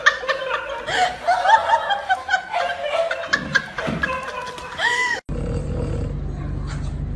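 Person laughing in quick, repeated high-pitched giggles. About five seconds in it cuts off abruptly, and a steady low hum takes over.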